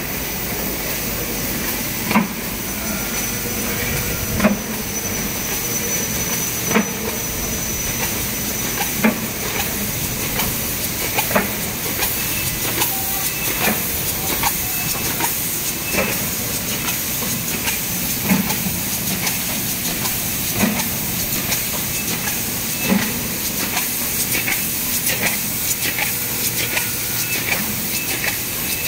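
DGM folder gluer running: a steady hissing machine noise with a sharp knock about every two and a quarter seconds and lighter clicks in between.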